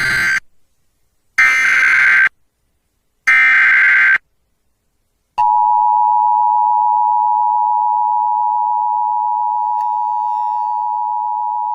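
Emergency Alert System activation on TV: the SAME header's three short bursts of warbling digital data tones, about a second each with a second's pause between, then about five seconds in the steady EAS attention signal, a held two-tone 853/960 Hz chord, announcing an emergency warning.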